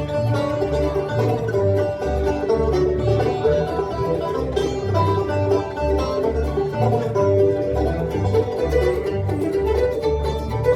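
Bluegrass band playing a tune: banjo, fiddle, mandolin and guitar over a bass line that keeps an even beat.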